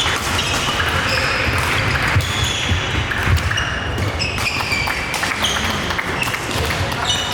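Sports shoes squeaking on a hall floor in quick, short chirps of changing pitch, with scattered sharp hits and a low hall rumble.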